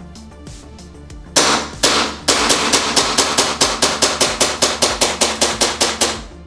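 Gas blowback airsoft gun firing two single shots about half a second apart, then a full-auto burst of about five shots a second that lasts roughly four seconds, with background music underneath.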